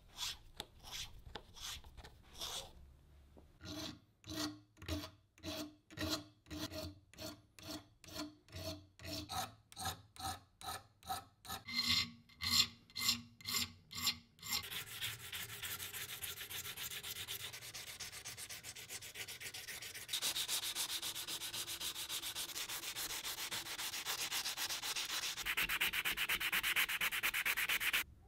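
Abrasive rubbing on a brass lamp part: regular back-and-forth strokes, about two a second, each with a faint ring. About halfway through it gives way to a continuous, even rasp that cuts off abruptly at the end.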